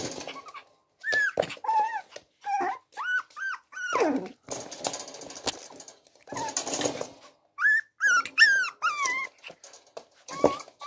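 Six-week-old puppies play-fighting, with many short high yips and squeals that rise and fall in pitch. About four seconds in comes one longer yelp that drops sharply, and rough puppy growls fill the gaps.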